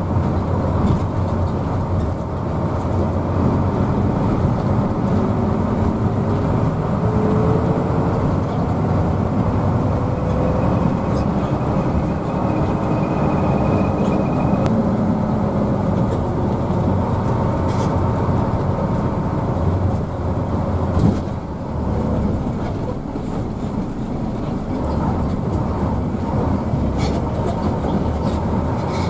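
Inside a moving Hino AK bus: steady engine drone and road rumble heard from the passenger cabin, with one sharp knock about 21 seconds in.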